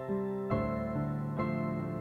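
Gentle background music on a piano-like keyboard, sustained chords changing about once a second.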